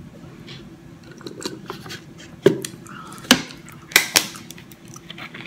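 Thin plastic drink containers being handled while a plastic water bottle's screw cap is twisted open: a few small ticks, then four sharp plastic clicks and knocks over the second half, the last two close together.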